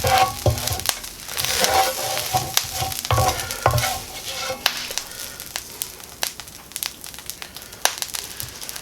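Chicken breasts and melted cheese sizzling in a frying pan, with a utensil scraping and clicking against the pan. The scraping is strongest in the first few seconds.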